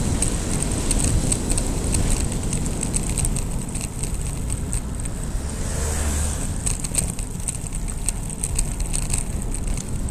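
Wind buffeting an action camera's microphone on a fast bicycle descent, with scattered light clicks. A car swishes past close by about six seconds in.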